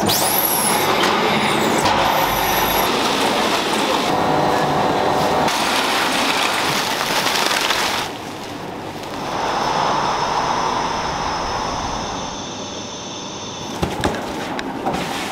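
Food-factory machinery running with a loud, steady hissing noise. About eight seconds in it gives way to a quieter hum of the plant. A couple of sharp knocks come near the end.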